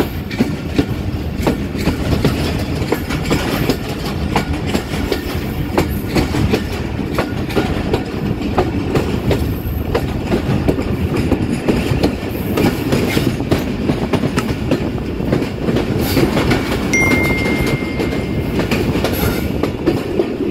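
Moving passenger train of the Millat Express: a steady rumble with the coach rattling and the wheels clacking over the track in many short clicks and knocks. Near the end a thin high steady tone sounds for a couple of seconds.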